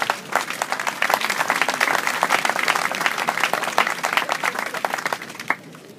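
Audience applauding, swelling over the first second and stopping abruptly about five and a half seconds in.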